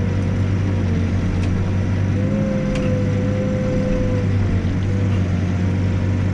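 Backhoe's diesel engine running steadily under load, with a wavering whine above the engine hum that grows stronger about two seconds in.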